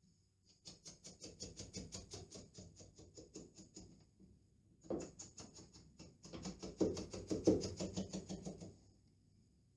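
Rapid rubbing strokes over pasted lining paper on a wall, about six a second, in two runs of three to four seconds each.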